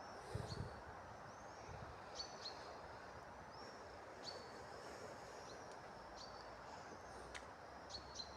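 Scattered short, high bird chirps, a few each second at irregular spacing, over a steady outdoor background hiss. A few low bumps on the microphone about half a second in.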